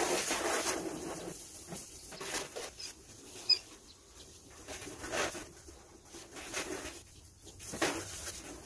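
Water spraying from a garden hose onto a car, in irregular hissing bursts as the spray is swept over it, with a sharp click about three and a half seconds in.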